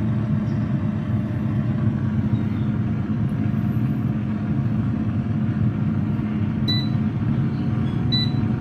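Air fryer running: its fan gives a steady low whirring hum. Two short high beeps sound near the end.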